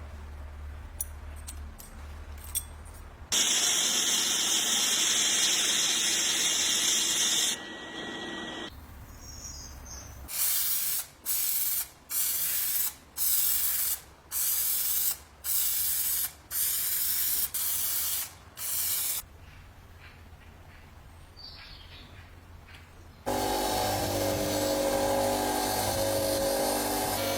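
Aerosol spray hissing: one long spray of about four seconds, then a run of about eight short sprays. About four seconds before the end a steady machine sound with a hum in it starts.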